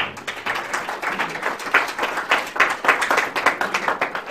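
Audience applauding with a dense run of hand claps.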